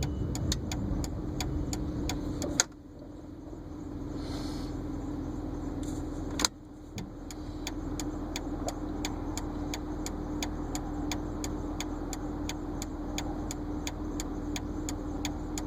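Car cabin while driving: a steady engine and road hum with a regular ticking of about three clicks a second. About two and a half seconds in, a sharp click cuts the ticking and hum away. Another sharp click about four seconds later brings them back.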